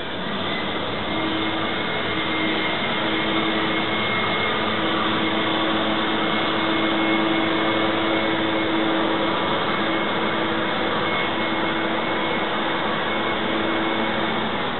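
Propane roofing torch burning, a steady rushing noise with a faint hum in it, swelling during the first second and then holding level.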